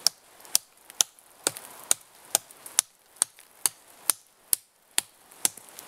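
Bear Grylls Ultimate Survival Knife, a fixed-blade knife, chopping into a tree limb in a steady run of sharp strikes, a little over two a second.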